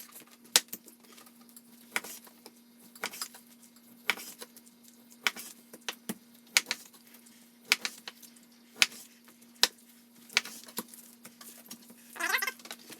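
Knife knocking against a cutting board while slicing beef eye of round into steaks, with sharp irregular knocks about once a second over a faint steady hum.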